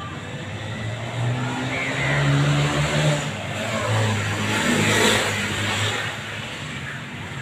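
A motor vehicle's engine passing close by: it builds up and revs, loudest in the middle few seconds, then fades.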